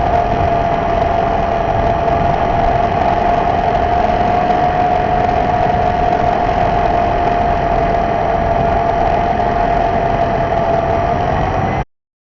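R/C model airplane's motor and propeller running at a steady cruise: a loud, even drone with a single strong tone. The pitch rises slightly near the end before the sound cuts off abruptly.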